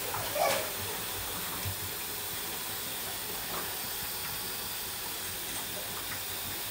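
Parboiled rice and its hot water being poured from a stainless-steel pot into a colander to drain: a steady low hiss, with a brief metal clink about half a second in.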